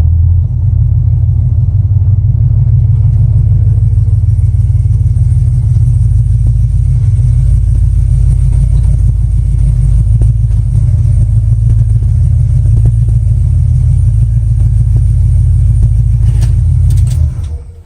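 Supercharged 5.3 L V8, fitted with an LS9 cam and a Vortech supercharger, running in a 1974 GMC truck: a loud, steady, deep rumble that stops shortly before the end.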